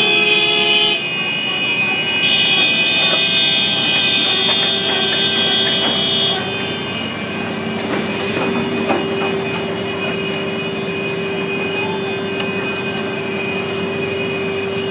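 Several vehicle horns blown together and held on in a continuous chord of steady tones. The higher horns drop out about six seconds in, leaving a lower horn tone sounding steadily.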